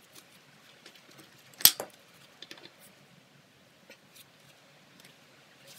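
Socket wrench and metal hand tools clinking against an aluminium engine block: one sharp metallic clack about a second and a half in, then a few lighter clicks.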